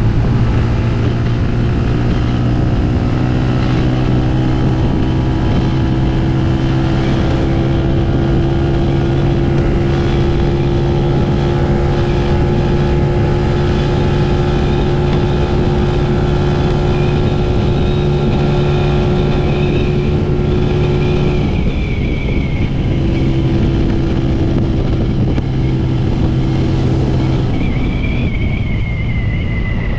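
TVS Apache RTR 200 4V's single-cylinder engine running steadily at cruising speed. About two-thirds of the way through the throttle is briefly closed, then the steady running resumes, and the engine note changes again near the end.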